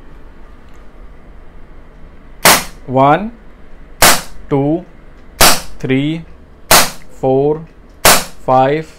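Crosman SNR357 CO2 air revolver firing .177 lead pellets: five sharp shots, one every second and a half or so, starting about two and a half seconds in.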